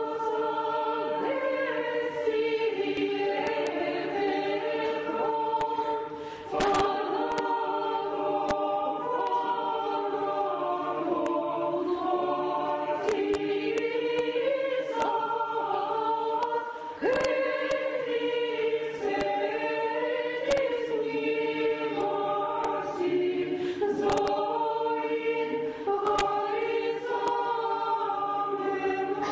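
Church choir singing a cappella, several voices holding chords in slow phrases, with brief breaks between phrases about six and seventeen seconds in.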